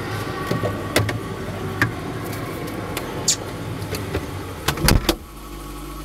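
Refrigerator being used: light clicks and clinks as food is handled on the door shelves, then a few loud knocks near the end as the fridge door swings shut, after which everything is muffled under a steady low hum.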